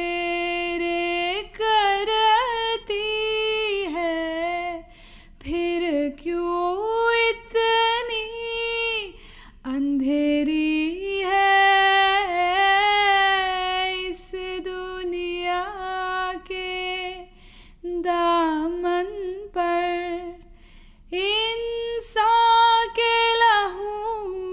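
A woman singing solo and unaccompanied: long, drawn-out notes with ornamented turns and pitch bends, broken by short pauses for breath.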